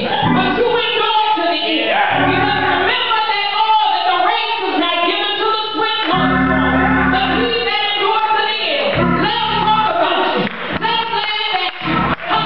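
A woman singing a gospel solo into a microphone, drawing out long held notes, over low held chords from an accompanying instrument that come and go every few seconds.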